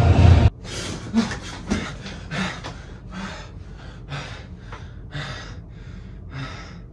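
A man panting hard after jolting awake: quick, heavy breaths, about two a second, that slowly ease off. Loud music cuts off abruptly about half a second in, before the breathing starts.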